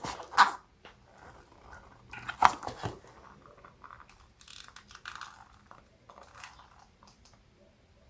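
Slime being handled and squeezed: irregular sticky squelches, crackles and small pops, loudest near the start and about two and a half seconds in, then softer.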